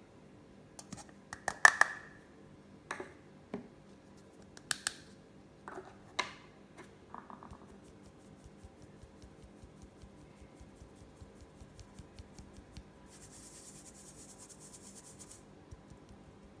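A metal mesh sieve knocks and scrapes against a glass mixing bowl several times, the loudest about two seconds in, some with a brief ring. It is then tapped in quick light ticks to sift flour and cornstarch into the batter, with a soft hiss of powder passing through the mesh near the end.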